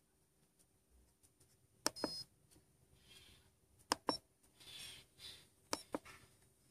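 Keys pressed on a RigExpert AA-54 antenna analyser: several sharp clicks, the first about two seconds in, with short electronic beeps after the first one and after a quick pair of clicks near the middle. The clicks and beeps come as the unit is switched from a frequency readout to an SWR sweep. Soft rustling of handling lies in between.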